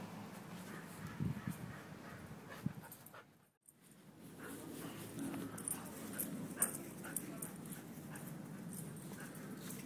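An Australian Shepherd making quiet dog sounds, with a few short sharp clicks. The sound drops out briefly about three and a half seconds in.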